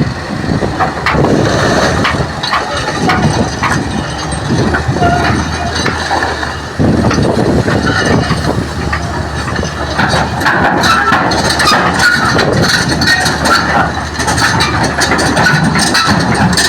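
Excavator's diesel engine running as the machine is driven, with rattling and clanking from the moving machine. It gets louder about seven seconds in.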